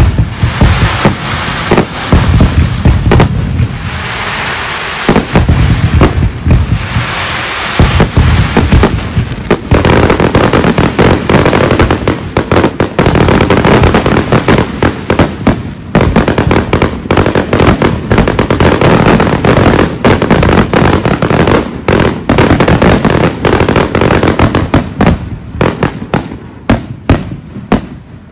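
Professional fireworks display firing a dense, continuous barrage of shells: rapid bangs and deep booms over constant crackle. The bangs thin out and fade in the last couple of seconds.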